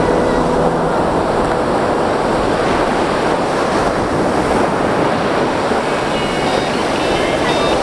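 Ocean surf breaking and washing up a sandy shore: a steady rushing noise.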